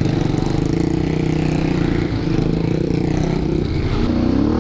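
All-terrain vehicle (ATV) engine running steadily under way on a trail ride.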